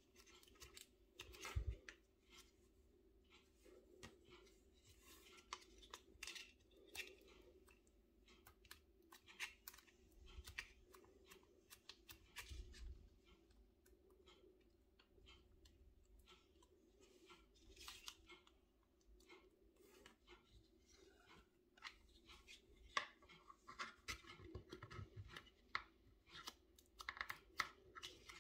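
Faint, irregular crisp cutting and crunching clicks, growing denser near the end, over a low steady hum.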